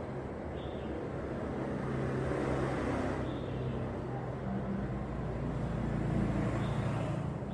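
Steady low mechanical rumble with a faint hum that shifts slightly in pitch in the second half.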